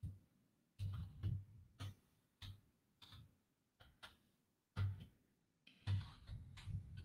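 Computer keyboard being typed on: quiet, irregular key clicks in short runs with brief pauses between them.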